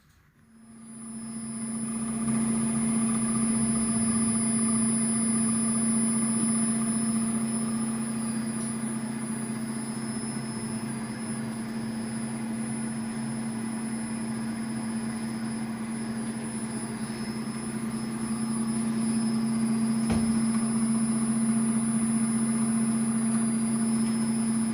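Servo motor with a freshly repaired rotor running steadily with a constant hum that builds up over the first two seconds.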